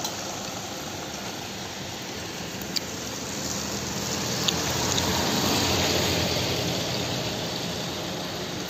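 A steady engine-like running noise with a broad rushing hiss, swelling a little about five seconds in, with two brief sharp clicks.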